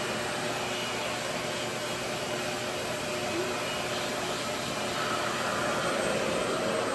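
Revair reverse-air hair dryer running, its motor and suction giving a steady whooshing hiss, a little louder from about five seconds in.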